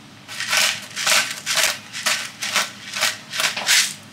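Black pepper being ground from a hand-twisted pepper mill full of whole peppercorns: a run of short scratchy grinding strokes, about two a second, as the mill is twisted back and forth.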